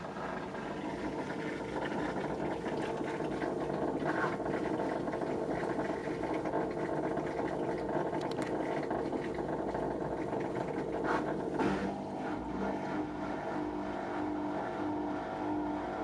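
Whirlpool front-loading washing machine on its drain cycle: the drain pump runs with a steady mechanical hum, and its note changes about twelve seconds in.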